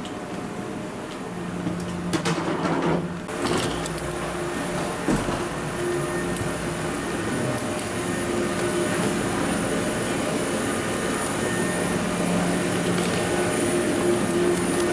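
Steady hum inside a Boeing 737-800 cabin, with a faint high whine over it. There are a few knocks and clunks about two to three seconds in and again at about five seconds.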